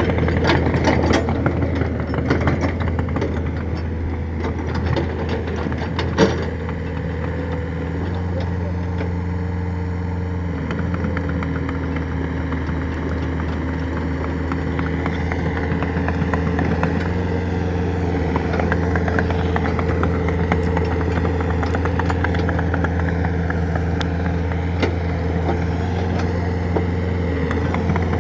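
Excavator's diesel engine running steadily, with clanks and clicks over the first several seconds and one sharp knock about six seconds in.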